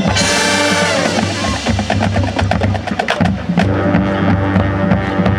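High school marching band playing, led by its percussion section: a cymbal crash at the start, then a run of rapid drum and percussion hits over sustained low brass notes.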